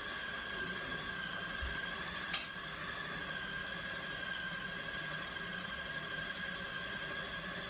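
Food processor motor running steadily with a high whine as it grinds beef and pork. A single sharp clink comes about two seconds in.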